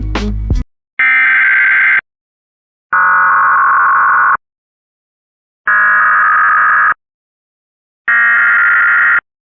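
Emergency Alert System SAME header bursts: four loud blasts of harsh digital warbling data tones, each about a second long, with silent gaps between, encoding the alert's header. A guitar music bed cuts off just before the first burst.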